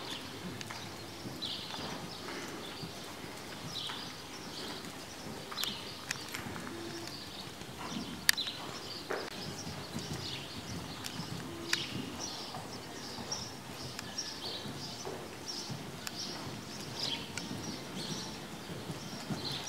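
A horse cantering on the sand footing of an indoor arena, its hoofbeats muffled by the sand. High bird chirps come at intervals, with a few sharp clicks, the loudest about 8 seconds in.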